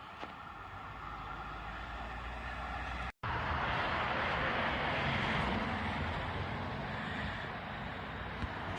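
Public transport vehicle running: a steady hum with a faint whine, then, after a cut about three seconds in, a louder even rushing noise with a low rumble.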